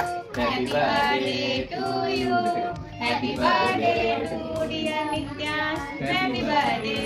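Several voices, children's among them, singing a birthday song together, with hands clapping along in time.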